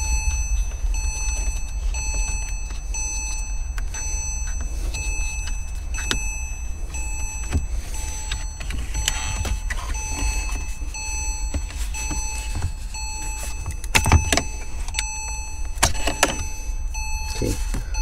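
Porsche 987 Boxster climate-control unit being pulled out of its dash slot: plastic clicks and knocks as its clips let go, the loudest a few seconds before the end. Underneath are a steady low hum and a beeping chime that repeats about once a second.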